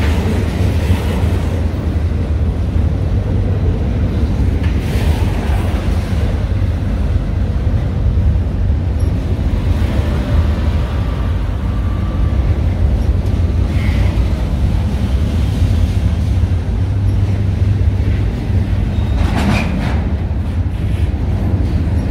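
A train running past on the tracks, a steady, loud, low rumble with a few brief higher-pitched flares of wheel noise.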